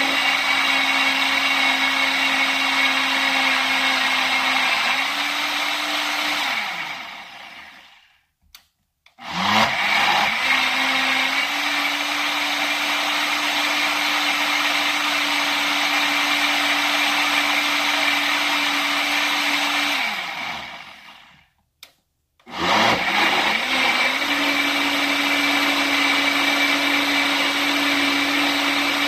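Countertop blender motor running at high speed, blending a smoothie. It winds down and stops twice, each time for about a second, then starts up again.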